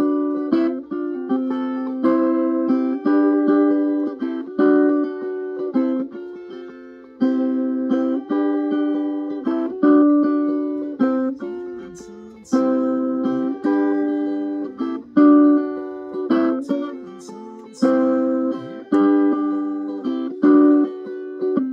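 Homemade electric cigar box ukulele, maple with a spruce soundboard, played with strummed chords that each ring out and fade before the next stroke.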